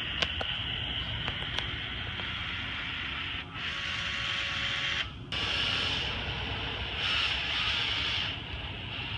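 Cordless caulking gun's motor running in two spurts as it pushes out a narrow bead of windshield urethane, stopping briefly about five seconds in. A single click comes near the start.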